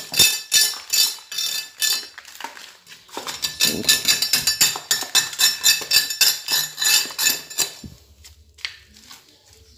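A metal hand tool scraping and chipping excess concrete off the edge of a freshly cast concrete slab, in quick, rough strokes with small clinks. It stops about eight seconds in.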